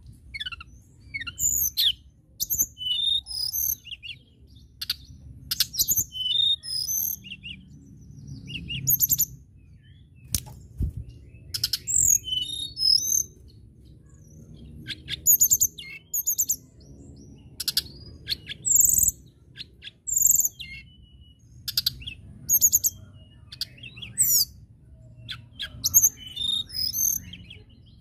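Caged male blue flycatcher (tledekan) singing: a continuous run of short, high, sweet whistled phrases and quick trills, one after another with brief pauses.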